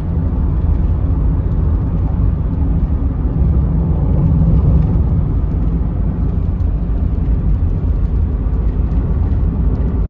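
Steady low rumble of a vehicle driving on the road, tyre and engine noise heard from inside the cabin.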